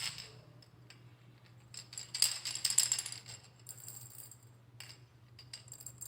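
Montessori sound-box cylinders being shaken, their contents rattling, while they are compared by ear to find the softest of the set. The loudest shaking comes about two to three seconds in, with a few softer shakes after it.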